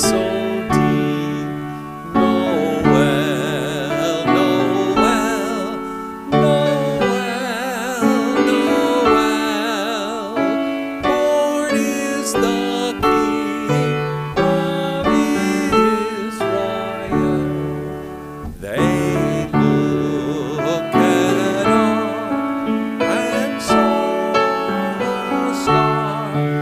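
A congregation singing a hymn together, with piano accompaniment.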